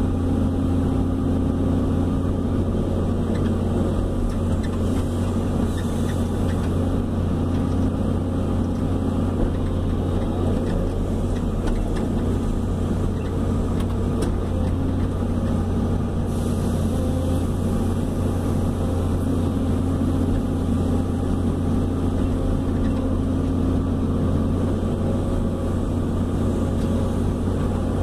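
Hydraulic excavator's diesel engine running steadily, a constant low drone heard from inside the operator's cab.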